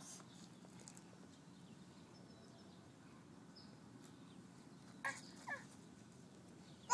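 Domestic cat giving two short meows, about half a second apart, about five seconds in, over faint steady outdoor background.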